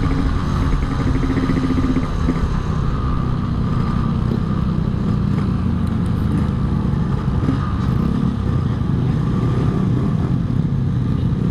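Yamaha RX-King two-stroke single-cylinder engine running steadily while riding, mixed with road and wind noise.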